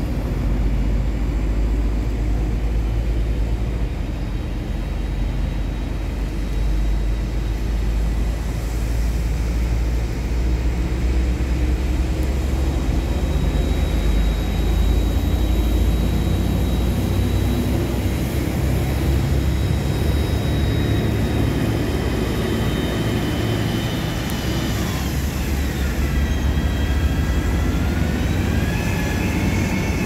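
Heavy diesel engine of a motor grader running steadily as it works the roadbed, a deep rumble with a whine on top whose pitch dips and then climbs again near the end as the grader comes close.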